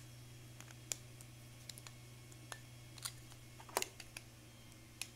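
Thin 3D-printed PLA plastic ring being squeezed and flexed by hand, giving a few scattered light clicks and ticks over a faint steady low hum.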